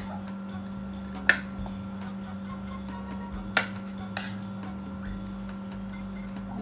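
Eating utensils clinking against a plate: three sharp clinks, the first over a second in and the last two a little over half a second apart near the middle, over a steady low hum.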